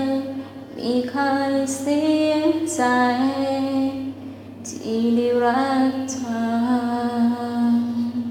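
A woman singing a slow Thai love song, holding long notes that step up and down in pitch between short breaths and crisp consonants, over a faint steady low hum.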